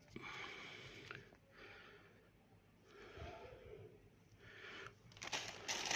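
Soft rustles in a few short bursts, then louder, denser crinkling of plastic packaging from about five seconds in, as the power cables are handled.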